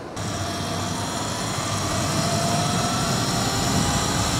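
Electric motorbike on the move: a faint motor whine rising slowly in pitch as it gathers speed, under wind and road noise on the microphone that comes in suddenly at the start and grows steadily louder.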